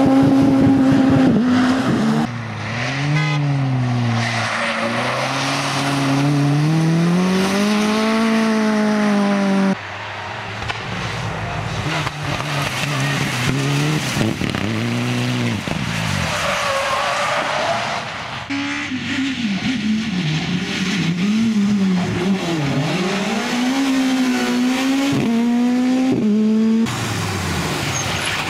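Rally cars passing at speed one after another, engines revving hard, the pitch climbing and dropping sharply with each gear change and lift off the throttle. The sound changes abruptly several times as one car gives way to the next.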